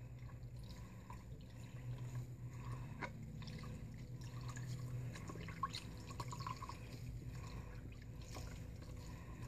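Faint dripping and trickling of water from a wet washcloth squeezed and dabbed over a baby's head to rinse out shampoo, with small scattered splashes over a low steady hum.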